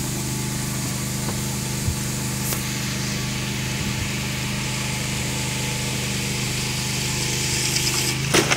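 Honda 7.5 hp gasoline engine of a cable winch running steadily under load as it reels in steel cable hauling a pallet of chayote crates up the slope. A couple of sharp knocks come near the end as the load reaches the top.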